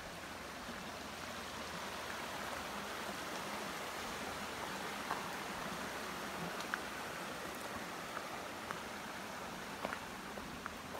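Steady rushing noise, as of running water, with a few faint sharp clicks.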